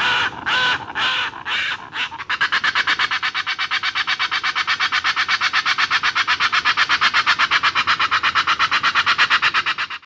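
Bird calls: a few harsh, pitched calls about half a second apart, then about two seconds in a fast, even run of pulsed calls, roughly ten a second, that keeps going.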